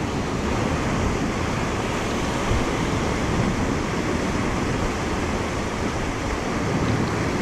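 Steady rushing of moving river water, mixed with wind on the microphone.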